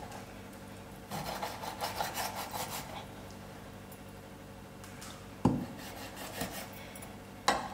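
Quick scraping and rubbing strokes from raw chicken gizzards being cleaned, their yellow inner lining being scraped away. The strokes run for about two seconds starting a second in, then ease off, with a sharp knock about five and a half seconds in and another near the end.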